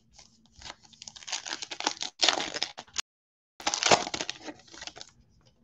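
Foil trading-card pack wrapper crinkling and tearing as it is ripped open by hand, in a run of crackly bursts with a short break about three seconds in.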